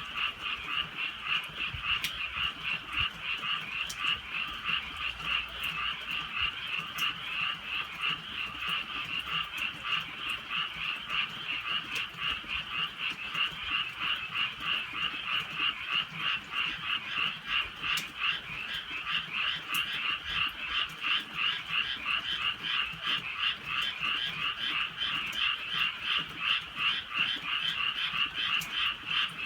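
A chorus of many frogs calling at night, a dense, unbroken mass of fast, pulsing croaks.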